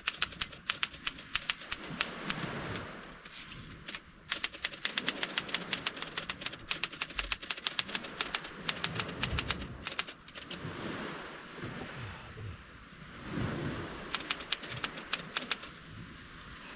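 Keys of a vintage Underwood manual typewriter clacking in quick runs of strikes, broken by a few short pauses.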